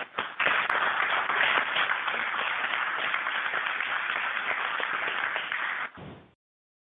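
Steady rush of radio static on the launch communications loop, an open channel with no one speaking. It holds level for about five seconds, then cuts off abruptly into silence near the end as the channel closes.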